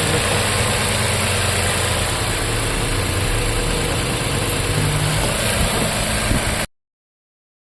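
Toyota Camry V6 engine idling steadily, with a cylinder 3 misfire that a scanner reads out moments later. The sound cuts off suddenly near the end.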